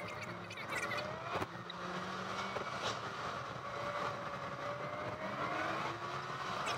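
Car engine and tyre noise heard from inside the cabin while driving, with the engine's pitch slowly rising and falling. A single sharp click about a second and a half in.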